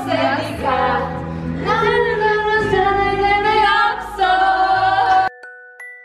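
Background pop song with female singing, cut off suddenly about five seconds in, followed by a couple of ringing chime notes.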